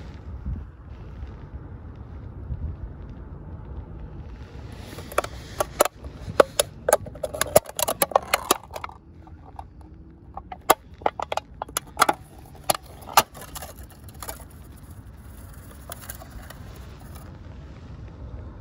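Thin aluminium beer can, already torn open, crinkling and crackling as it is bent and its torn edges are worked by hand. The crackles come in a dense cluster from about five to fourteen seconds in, over a low wind rumble on the microphone.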